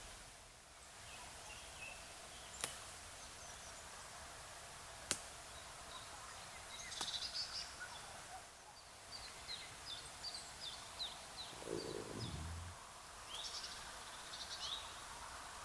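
Outdoor ambience with small birds chirping in quick runs through the second half. There are two sharp clicks in the first few seconds and a brief low rumble about twelve seconds in.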